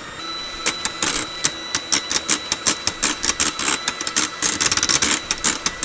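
Electric hand mixer running steadily, its wire beaters whipping egg-white cooked frosting in a stainless steel double-boiler pot and clicking and clattering against the metal sides many times. The frosting is still being beaten toward spreading consistency.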